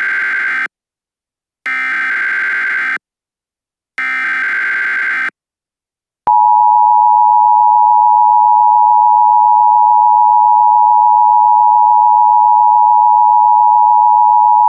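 Emergency Alert System (EAS) activation. It opens with the tail of one burst and then two more bursts of digital SAME header data tones, each lasting about a second. About six seconds in, the loud, steady two-tone attention signal begins, announcing an emergency message.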